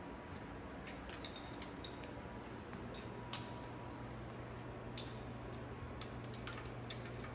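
Scattered light metallic clicks and clinks of a hand tool and parts being handled at the front of a bare engine block, over a low steady hum that comes in about halfway through.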